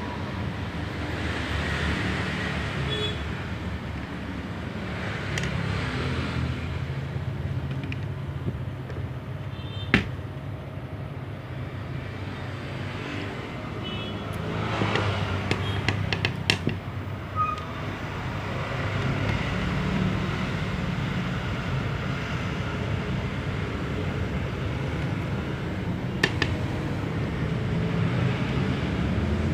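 Steady road-traffic rumble that swells as vehicles pass, with a few sharp clicks: a loud one about ten seconds in and a quick cluster a few seconds later.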